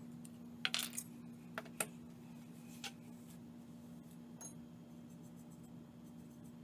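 Several sharp metallic clinks from handling a TSProf guided knife sharpener: a quick cluster about a second in, two more shortly after, one near three seconds and a weaker one later, over a steady low hum.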